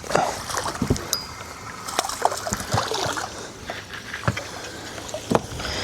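Water lapping against a small fishing boat's hull, with a few light knocks and clicks from handling gear in the boat.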